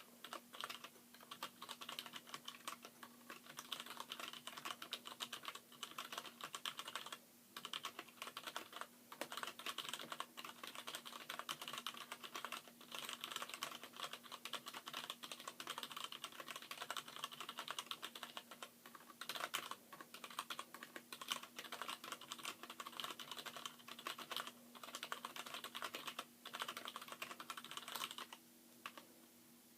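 Fast touch typing on a mechanical keyboard whose letter keys are Gateron Brown tactile switches in Cherry MX Black housings: a dense run of key clicks with brief pauses now and then.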